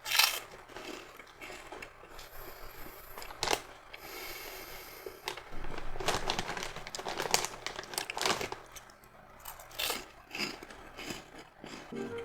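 Crunchy bites and chewing of Banana Kick, a banana-flavoured puffed corn snack, as a series of irregular crackles, with crinkling of the plastic snack bag.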